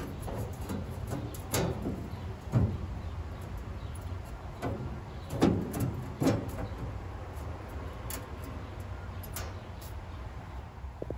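Sheet-metal floor panel being handled and set into place in an old roadster body, with a few irregular knocks and scrapes against the frame, mostly in the first two-thirds.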